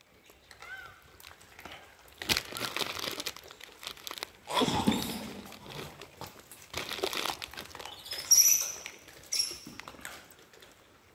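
Irregular crackling and rustling as gray langurs pick roasted chickpeas out of a person's palm and handle and eat them. A few short, high chirps come in near the end.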